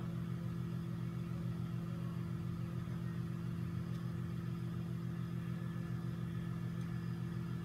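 Steady low mechanical hum of a machine running nearby, several low tones held level without change.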